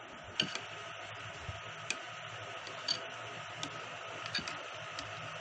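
Metal spoon clinking lightly against a glass bowl while stirring rice soaking in water: six or so sharp ticks, irregular, roughly a second apart.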